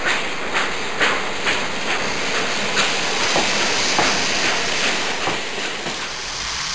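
Lionel O27-gauge toy train with a die-cast steam locomotive running on its three-rail track: a steady motor whir with wheels clicking over the track joints about twice a second, the clicks spreading out later on.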